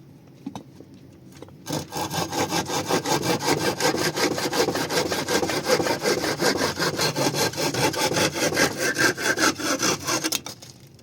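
Hand saw cutting through wood in quick, even back-and-forth strokes. It starts about two seconds in and stops shortly before the end.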